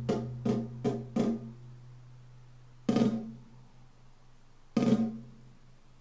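Drum-led music played through a pair of Canton Karat 100 three-way sealed compact speakers. A quick run of drum hits in the first second and a half gives way to two single ringing strikes, about 3 and 5 seconds in.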